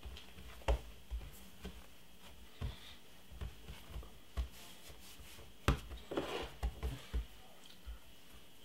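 Hands kneading pizza dough on a stone worktop: irregular soft thumps as the dough is pressed and pushed down, with rubbing in between. The loudest thump comes about two-thirds of the way through, followed by a quick run of smaller ones.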